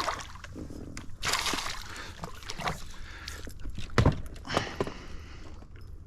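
Water splashing and sloshing beside a small fishing boat as hooked fish are fought, with a couple of sharp knocks on the boat about four seconds in.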